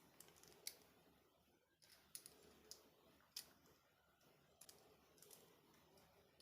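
Faint, scattered clicks and light taps of small plastic pieces being handled, about half a dozen spread over a few seconds against near silence.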